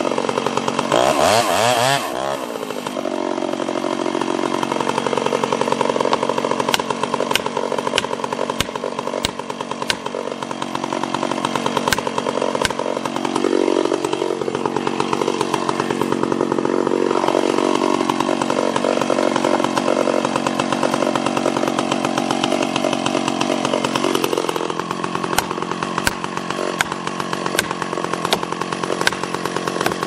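Ported Stihl 031 AV two-stroke chainsaw cutting into a standing tree trunk. The engine revs up about a second in, then runs steadily under load, its pitch sagging and recovering as the chain bites, with scattered sharp ticks.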